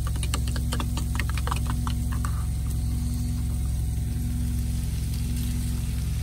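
Steady low hum of a semi truck's idling diesel engine, with a run of quick light clicks in the first two and a half seconds.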